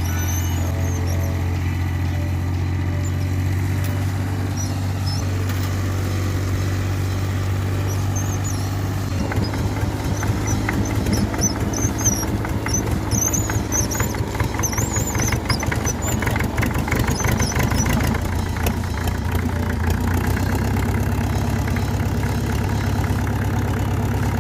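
An engine running steadily at idle, then working harder and rougher with a rapid clatter from about nine seconds in, settling back toward idle near the end.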